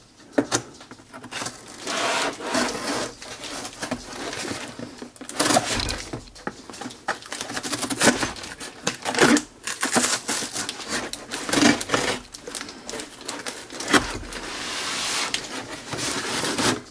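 Folding knife blade sawing and slicing through a cardboard box's taped seam, in irregular scraping strokes, with cardboard tearing and the box knocking as it is handled. A longer continuous scrape comes near the end.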